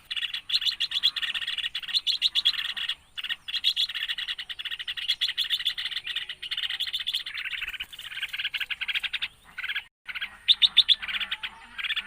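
Red-whiskered bulbuls chirping rapidly and almost without pause, with short breaks about three and ten seconds in.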